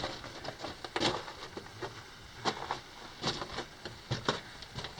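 Irregular scrapes, crunches and knocks of a person crawling over loose rock and gravel in a low mine tunnel, about one or two a second.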